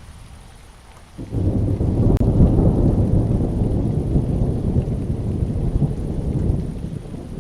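Thunder in a rainstorm: a low rumbling roll breaks in suddenly about a second in and slowly fades, over the rain.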